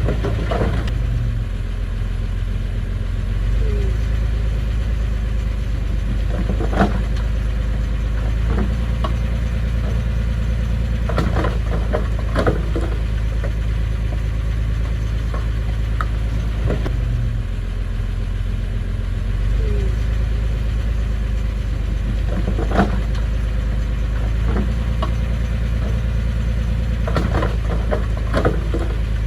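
Heavy-equipment engine running steadily, with a low hum, and short sharp knocks or clanks now and then.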